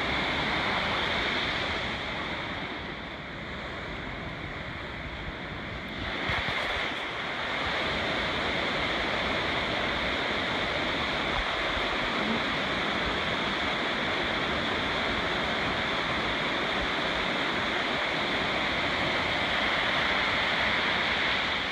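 Rushing mountain creek tumbling over rocks, a steady whoosh of white water. It dips a little about two seconds in and comes back up around six seconds in.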